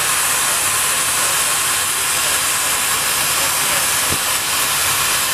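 Steam traction engine letting off steam: a loud, steady hiss.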